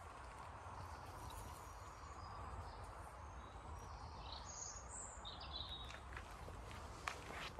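Quiet outdoor ambience with a steady low rumble and a few short bird chirps about halfway through, then a few crunching footsteps on gravel near the end.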